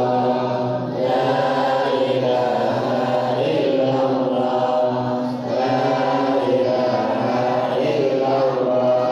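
A group of girls and women chanting a devotional recitation together in unison, with short breaks between phrases about a second in and again past the middle.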